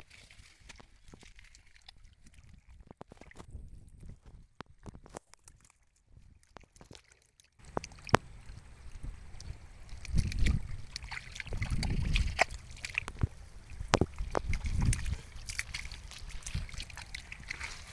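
Water sloshing and splashing, with scattered sharp knocks and clicks from handling. After a brief cut to silence it gets louder, with irregular heavier surges of sloshing.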